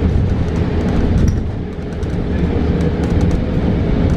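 Inside a 2022 New Flyer XE40 battery-electric bus under way: steady low road rumble with a constant whine and scattered light rattles and clicks.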